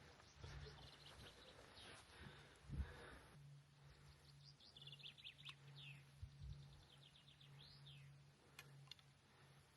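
Faint songbird calls: short, quick trills of falling high notes about halfway through and again near the end, over a steady low hum. There is a soft thump about three seconds in.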